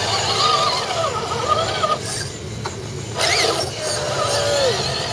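Scale RC crawler trucks' electric motors and gearboxes whining, the pitch rising and falling with the throttle. There is a quieter stretch about halfway through, and a whine that slides down in pitch near the end.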